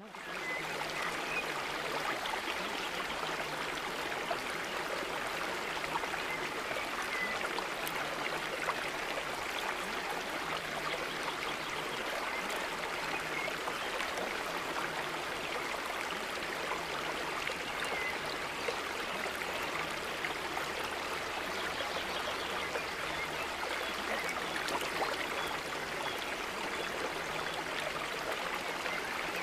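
Steady running water, like a babbling stream, holding even throughout.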